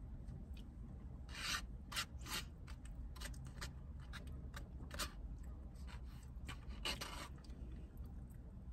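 Plastic spoon scraping and rubbing inside a foam cup of chili: several short, sharp scrapes spread irregularly, the loudest about a second and a half, two, five and seven seconds in.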